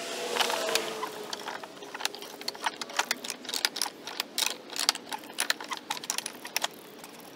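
Wooden vise screw of an antique Hammacher Schlemmer workbench being turned by hand, the wooden threads clicking and knocking in their wooden nut as the vise jaw is wound out. The clicks come irregularly, several a second, starting after about a second and a half.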